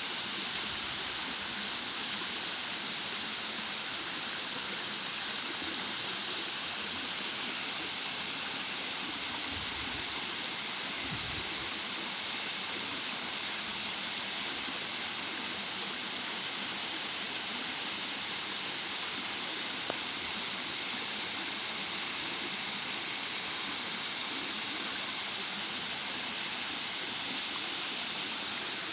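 Waterfall: a steady, hissing rush of falling water.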